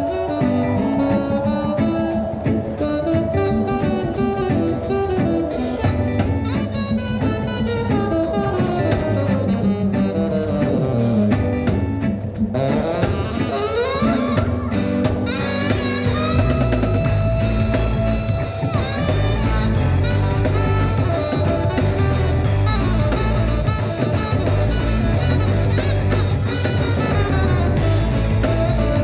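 Live band playing a dub-style cover: saxophone, electric guitars, bass and drum kit. The bass and drums come in heavier about halfway through.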